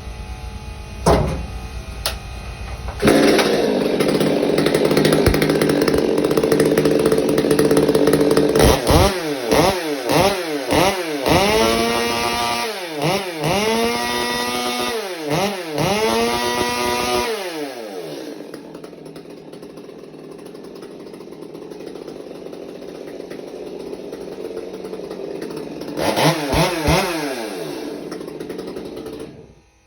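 Modified Stihl MS250 two-stroke chainsaw running: it gets loud about three seconds in and holds speed, then is revved up and down about eight times in quick succession, drops back to idle, is blipped twice near the end and shuts off. The saw runs cleanly and sounds pretty good after the modification.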